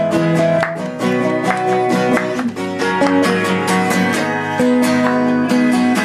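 Acoustic guitar music: strummed chords in a steady rhythm, with held notes sounding underneath.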